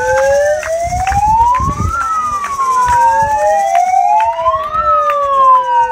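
A siren wailing in slow up-and-down sweeps, rising for about two seconds and falling more slowly, with a second sweep overlapping the first. Scattered sharp claps sound through it.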